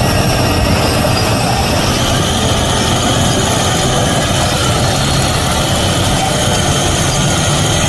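Bulldozer engine running steadily with a deep hum.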